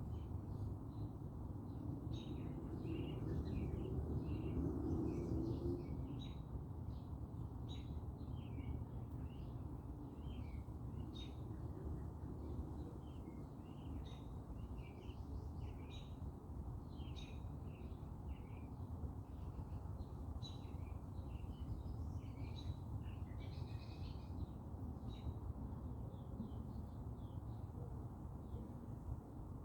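Small birds chirping repeatedly in short high notes, over a steady low background rumble.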